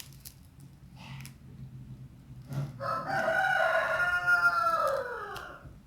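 A rooster crowing once, about two and a half seconds long, its pitch falling at the end. A few faint clicks come before it.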